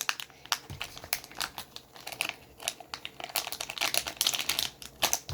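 Plastic packaging crinkling and crackling in quick, irregular bursts as it is handled and opened.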